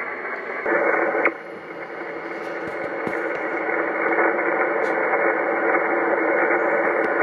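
Hiss of HF band noise from a ham radio transceiver's speaker on single sideband, between transmissions, with a louder stretch about a second in.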